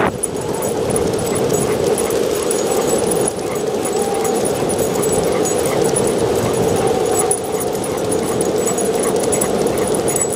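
Skateboard wheels rolling steadily over street asphalt as a running boxer tows the rider, with a dog's faint whining now and then.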